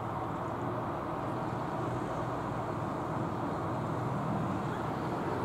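Air Force Fennec helicopter flying low overhead, its rotor and turbine making a steady noise.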